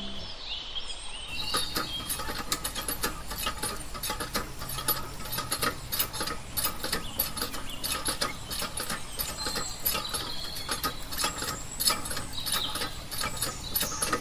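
A thin stream of water from a miniature hand pump's spout pouring into a small pond, a fast, irregular splashing crackle, with a few faint bird chirps.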